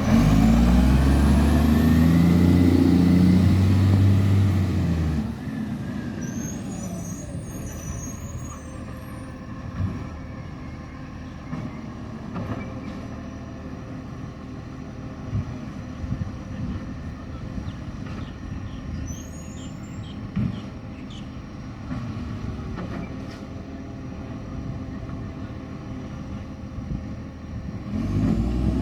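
Garbage truck engine with a very bad exhaust leak, pulling away loudly with its pitch rising for about five seconds. It then drops to a quieter steady running with scattered clunks, and rises loudly again near the end.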